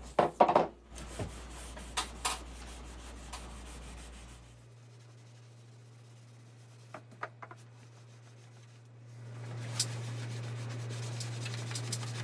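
Cloth pad rubbing paste wax onto the wooden base of a table saw sled, a scuffing rub that grows louder and steadier near the end. A few sharp knocks and clicks come right at the start.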